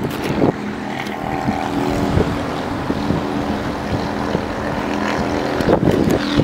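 A steady mechanical drone, with a few short knocks over it.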